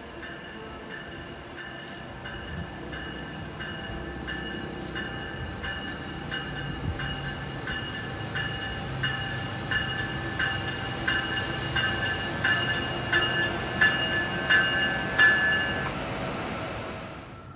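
Amtrak ACS-64 electric locomotive's bell ringing about two strikes a second as the train approaches the platform, over the low rumble of the train. It grows louder as the train nears, and the bell stops about a second and a half before the end.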